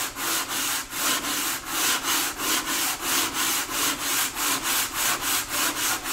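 Hand sanding block rubbing back and forth on the wooden rim of a bağlama bowl, a dry scratchy hiss in an even rhythm of about three strokes a second. The rim is being levelled at a slight outward angle so the soundboard will seat on it.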